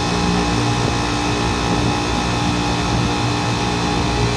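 Air-conditioning condensing unit running: steady hum of the compressor under a whooshing condenser fan. The refrigerant circuit is badly restricted, though the compressor itself sounds good.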